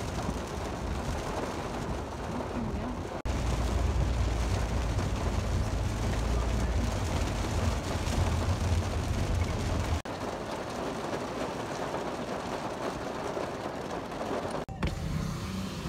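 Steady road and engine noise inside a car's cabin on a wet road, with rain on the windshield. It comes in edited pieces that cut off abruptly about three and ten seconds in; the middle piece is louder, with a heavy low rumble.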